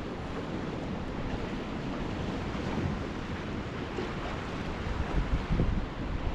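Wind buffeting the microphone over the wash of ocean surf against the jetty, with a stronger gust about five seconds in.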